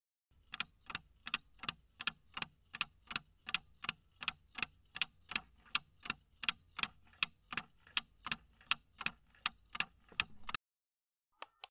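Clock-style countdown timer sound effect ticking evenly, about three ticks a second, stopping abruptly shortly before the end; two brief clicks follow just before the end.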